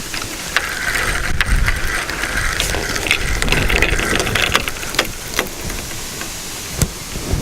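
Fishing reel being wound in, a rapid ticking whir that runs for a few seconds and then stops, with a few sharp clicks afterwards. Wind buffets the microphone underneath.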